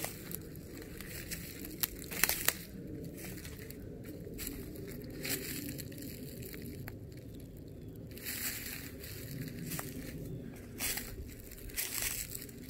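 Footsteps crunching through dry leaf litter and undergrowth on a forest floor, with a few sharp cracks about two seconds in.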